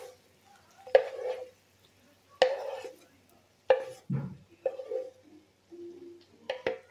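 A spoon knocking and scraping against a metal pan as fried carrot strips are tipped out onto rice. There are about six sharp knocks, each ringing briefly, with the last two close together near the end.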